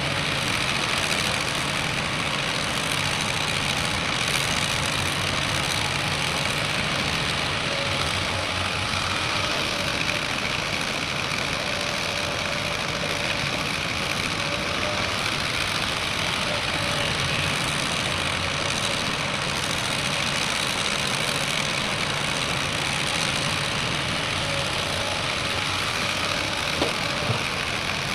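Heavy diesel machinery running steadily, with two faint clicks near the end.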